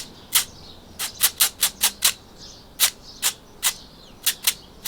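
A fork scraped across the mesh of a kitchen sieve: a series of short, quick scrapes, some in fast runs and some spaced apart.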